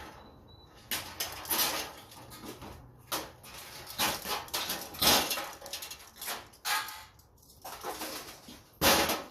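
Irregular knocks, clanks and scrapes of metal and tools as fluorescent light fixtures are taken apart for scrap.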